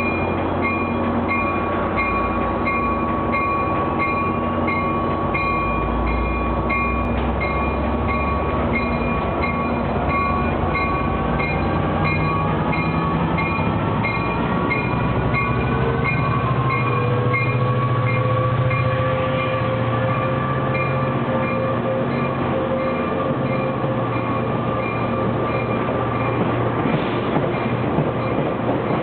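A Metrolink F59PHI diesel-electric locomotive, with its EMD 710 diesel engine, pulling a passenger train away from the platform. Its bell rings steadily, about one and a half strokes a second, and fades in the last third, over the engine's low rumble as it throttles up. A steady high whine and several tones rise in pitch as the train gathers speed and the coaches roll past.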